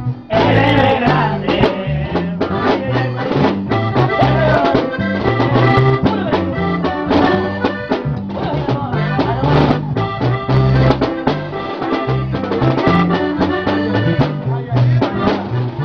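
Upbeat Latin music with a steady beat and a bass line.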